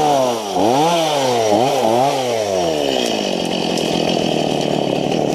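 Gasoline two-stroke chainsaw revving up and down in several quick blips, then dropping back to idle about three seconds in.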